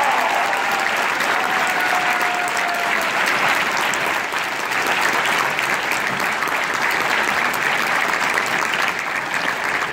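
Audience applauding steadily in an auditorium, many hands clapping at once. A single held, pitched call rises above the clapping in the first three seconds.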